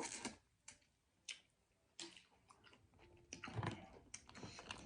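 Mouth sounds of someone eating seafood close to the microphone: chewing and biting with several sharp clicks spread apart, and a denser run of chewing near the end.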